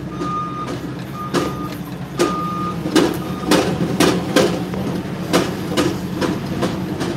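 Tractor engine running steadily, heard from inside the cab, with irregular sharp knocks and rattles. An electronic beep repeats several times over the first three seconds, then stops.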